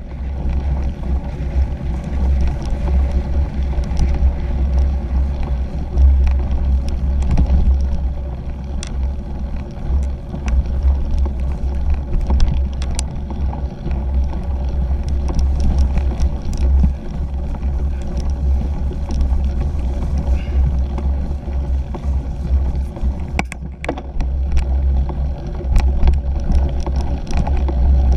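Ride noise from a 2017 Fuji Jari 1.5 cyclocross bike rolling over rough grass and dirt: a steady low rumble with wind on the camera microphone, broken by many scattered clicks and rattles from the bike jolting over the bumps.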